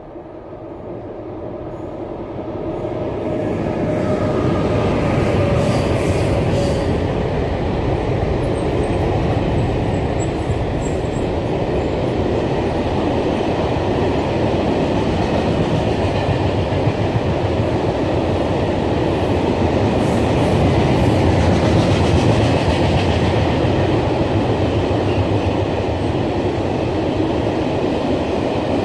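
Freight train of VR Transpoint wagons passing on the track overhead: the sound builds over the first few seconds, then holds steady as the wagons roll by.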